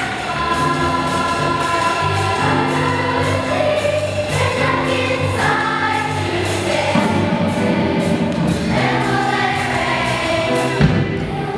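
Children's vocal jazz choir of elementary-school singers singing together in held notes, with a low accompaniment line underneath.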